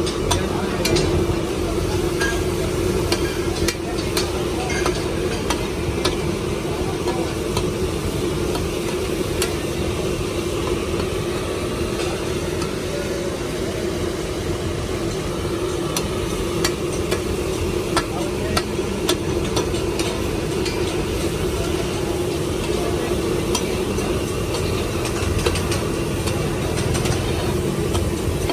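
Liver (kaleji) frying in a karahi, with a metal spatula stirring and clicking against the pan now and then, over a steady background hum.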